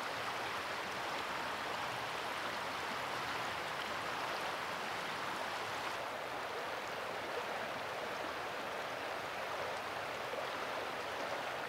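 Oil Creek flowing: a steady, even rush of water.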